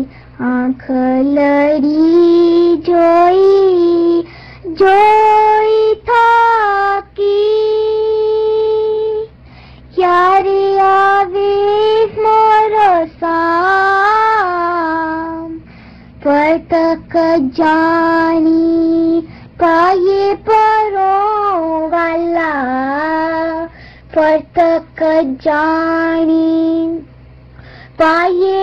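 A single high voice singing an Ismaili devotional hymn (ginan), unaccompanied. It sings in melodic phrases with sliding ornaments and wavering held notes, broken by short pauses.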